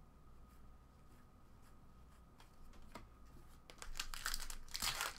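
Foil wrapper of a trading card pack being torn open and crinkled, the loud crinkling starting about three and a half seconds in after a few faint clicks of cards being handled.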